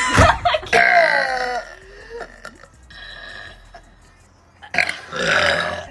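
A young woman burping loudly: two burps back to back in the first second and a half, the second falling in pitch, then another burp about five seconds in.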